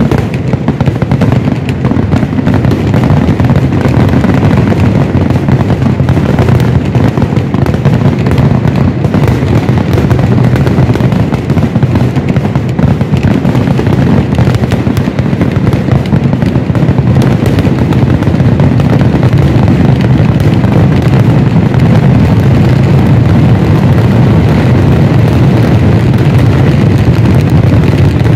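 Kerala temple-festival fireworks (vedikkettu): an unbroken barrage of firework and firecracker explosions, so rapid that the bangs run together into one continuous, deep, loud rumble.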